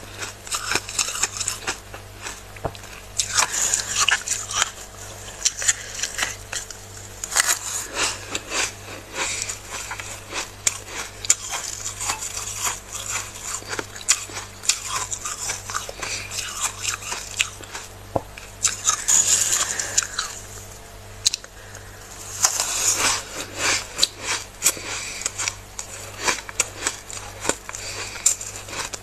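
Flaky freezer frost crunching as it is scraped off the icy freezer wall, a run of crisp crackles and scratchy bursts that come and go irregularly. A faint steady low hum sits underneath.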